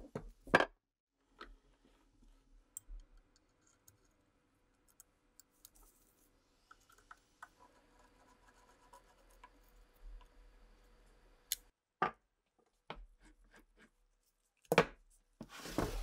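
Steel rifle parts knocking as they are set into a padded bench vise, then the light clicking and scratching of a screwdriver turning a small screw in the metal. A few more knocks near the end as parts are laid down on a wooden bench.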